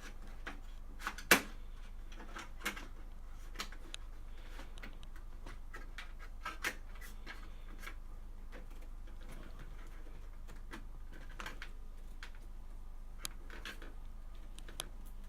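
Scattered clicks and light knocks of hands handling an SSD and its connectors while fitting it into a computer case's drive holder, with a sharper knock about a second in. A steady low hum runs underneath.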